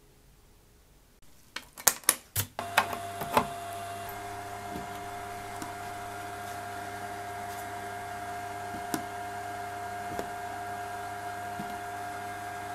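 A few sharp clicks about two seconds in, then a small electric device switches on and runs with a steady hum and a constant high whine, with an occasional faint click.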